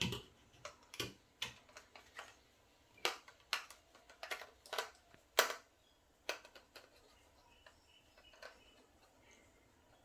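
Irregular hard plastic clicks and knocks from the PVC parts of a homemade air rifle being handled while a hose is worked off its fitting; about a dozen sharp clicks in the first six seconds, then a few faint ones.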